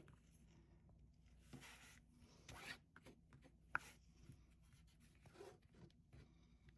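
Faint, scattered rubbing strokes of a bone folder smoothing glued bookcloth down onto a book board, with a couple of light clicks.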